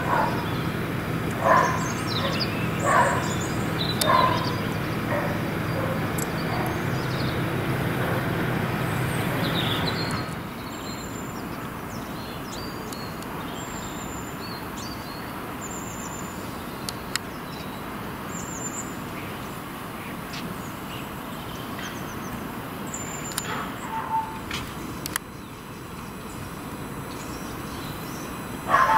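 A steady low mechanical hum for about the first ten seconds, with three short louder sounds near the start. Then a quieter outdoor background with small birds chirping now and then.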